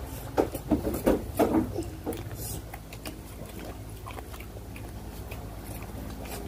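Close-up mouth sounds of a person chewing a mouthful of rice, chicken curry and fried fish, with several sharp wet clicks and smacks in the first two seconds, then quieter chewing over a low steady hum.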